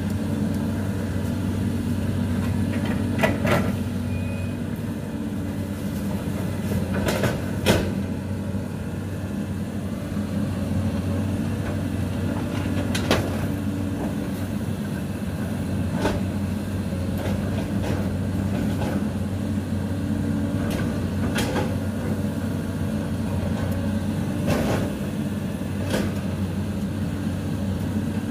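CAT 320D L long-reach excavator's diesel engine running steadily, with a few short sharp knocks scattered through.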